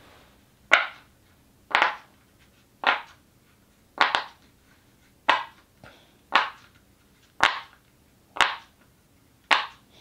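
Round silicone Pop It fidget toy having its bubbles pressed through one at a time: nine sharp pops, about one a second.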